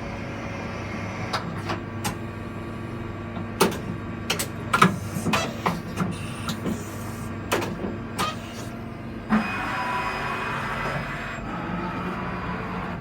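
HAMAI 3VS CNC milling machine running with a steady hum, with a series of sharp clicks and clunks in the middle. About nine seconds in, a louder whine with several tones starts and holds.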